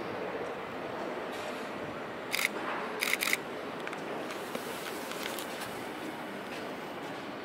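Steady background noise beside a railway line while trains are still far off, broken about two and a half seconds in by one short sharp click and, half a second later, by two more in quick succession.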